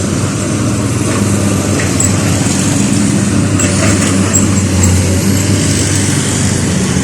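Motor vehicle engines running steadily, a low hum under constant traffic noise.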